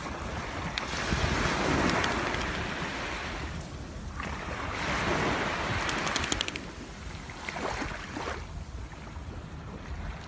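Small waves washing onto a sand-and-pebble beach, swelling and falling away twice, over a low rumble of wind on the microphone.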